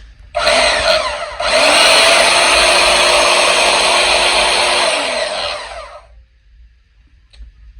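Bauer portable band saw's electric motor and blade running free: a short burst of about a second, then the trigger is pulled again and held for about four seconds before the saw winds down.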